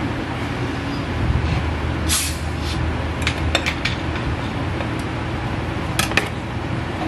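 Light clicks and clinks of a metal cake knife and cake server against a ceramic plate and a plastic cake turntable while a slice of layer cake is lifted onto the plate, with two sharper clinks about six seconds in as the utensils are set down. A short hiss about two seconds in, over a steady low hum.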